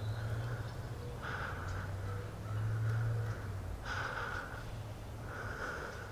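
A person breathing close to the microphone: short breaths about every one and a half seconds, over a low steady hum.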